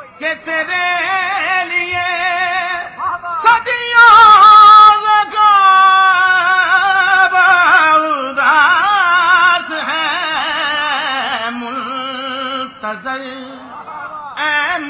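A man's voice singing Urdu devotional verse through a microphone, in long drawn-out notes that waver up and down, with short breaks between phrases. It is loudest about four seconds in.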